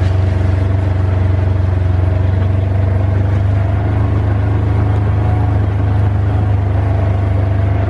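Vehicle engine running steadily with a strong low hum, as while driving at an even speed.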